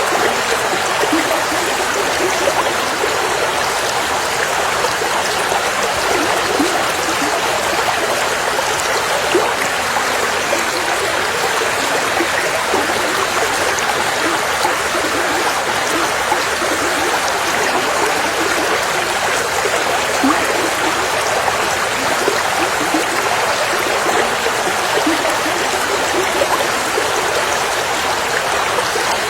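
River water flowing steadily over stones, a continuous rushing sound with small bright gurgles and splashes.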